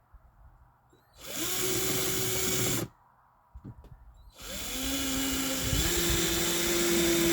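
Drill driving screws into a wooden step board in two runs: a short burst of under two seconds, then a longer run starting about four seconds in that steps up in speed partway through.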